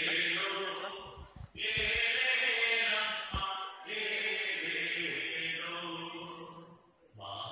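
Group of voices singing a Margamkali song in slow chant-like phrases, with short breaks between phrases.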